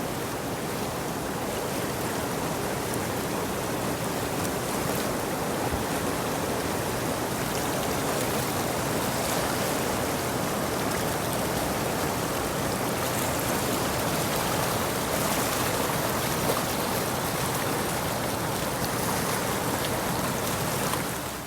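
Steady rushing water noise, even and unbroken, that stops abruptly near the end.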